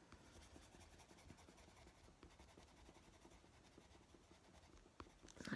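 Faint scratching of a Prismacolor coloured pencil scumbling over paper, pressed hard, with a single click about five seconds in.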